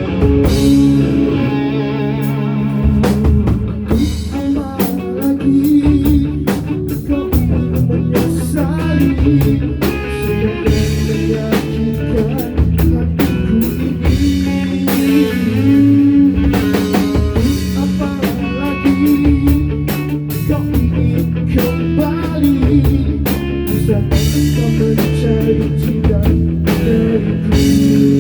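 Live band music: guitar over a drum kit, in a blues-rock style.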